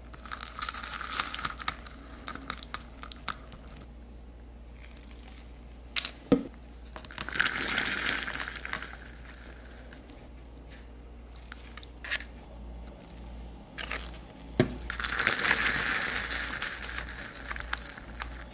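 A metal rod stirring thick sugar syrup and food colouring in a paper cup: three bouts of scraping and sticky squelching, with a few sharp knocks in between.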